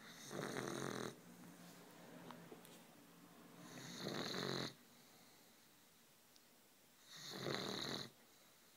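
Neapolitan mastiff puppy snoring in its sleep: three loud snores about a second long each, coming roughly every three and a half seconds, with softer breathing between them.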